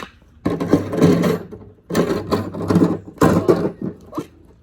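Loud grinding rattle of a hard object moved along the ground, in three bursts of about a second each and a short one near the end, made on purpose as a startling noise.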